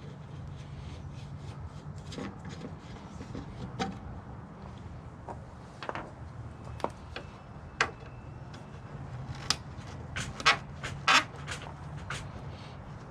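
Scattered clicks and knocks of hand tools and loose Torx screws being worked and handled, with a cluster of sharper knocks a few seconds before the end, over a steady low hum.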